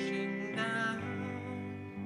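Live song with electric guitar and two voices singing: held guitar chords changing every half second or so under the vocal line.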